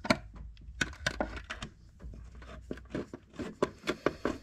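Irregular sharp metallic clicks and knocks of a socket wrench on a long extension, fitting and turning the nuts that bolt a turbocharger to the exhaust manifold. The clicks come in quick clusters, loudest in a run near the end.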